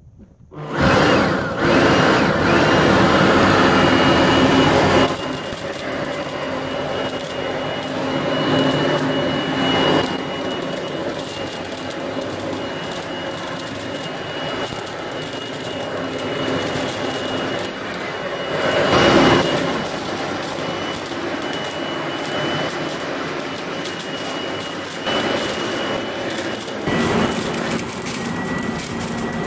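Stihl leaf vacuum shredder switched on under a second in, then running steadily with a high motor whine as it sucks up and shreds dry leaves. Its sound swells briefly twice.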